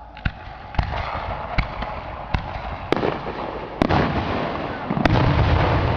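Fireworks display: about seven sharp bangs of bursting shells, spaced roughly half a second to a second apart, with crackling between them. The crackle builds into a dense rumbling crackle near the end.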